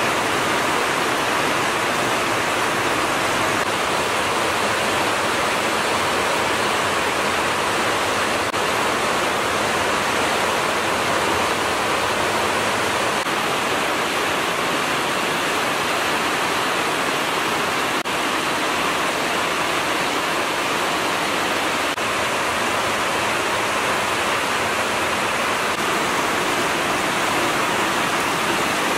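Steady heavy rain, an even unbroken hiss.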